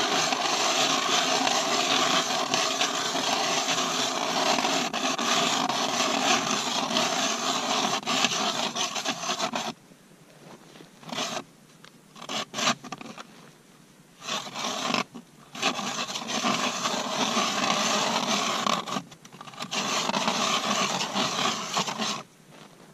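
Manual Mora hand ice auger cranked through lake ice, its blades scraping steadily for about ten seconds, then in shorter spurts with pauses between.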